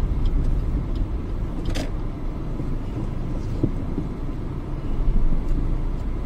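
Steady low rumble of a car driving, heard from inside the cabin, with one short click about two seconds in.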